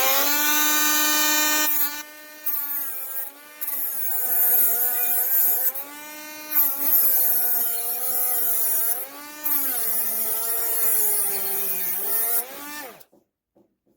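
SEESII brushless cordless mini grinder with a flap wheel, finishing its spin-up to a high whine and then grinding metal. Its pitch dips and wavers each time the wheel is pressed in, with bursts of grinding hiss, but it doesn't bog down completely. The motor cuts off near the end.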